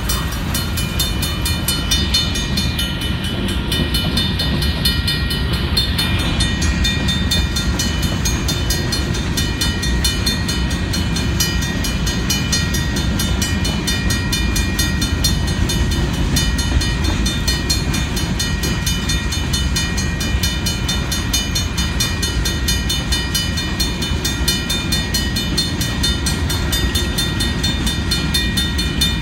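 Freight train of covered hopper cars rolling through a grade crossing: a steady low rumble of steel wheels on the rails. Over it a US&S mechanical crossing bell rings rapidly and steadily.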